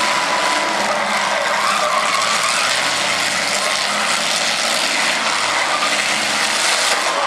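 Demolition derby cars' engines running and revving in a steady din, with faint whines rising and falling in pitch.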